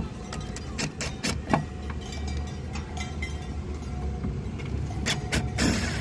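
Sharp clicks and knocks of a plastic speaker mounting ring being pressed against a car door's sheet metal and screwed in with a cordless driver, ending in a short burst as a screw is driven.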